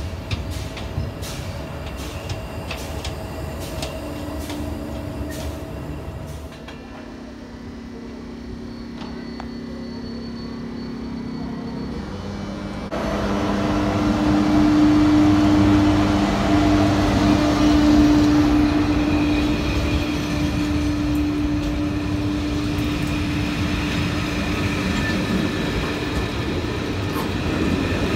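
Trains moving through a railway station: rail clatter with regular clicks at first, then a louder steady electric hum from a train running close by. The sound changes abruptly twice, about a quarter of the way in and about halfway through.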